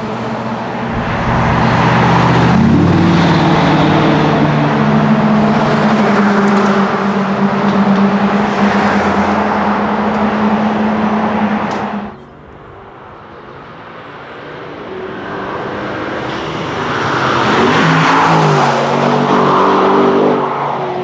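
Exhaust of a camouflaged Aston Martin DBX prototype's twin-turbo V8 under hard acceleration, its pitch stepping with gear changes about two and a half seconds in, then running loud and steady. It cuts off abruptly about halfway through, then builds again to a second loud pass near the end with more gear changes.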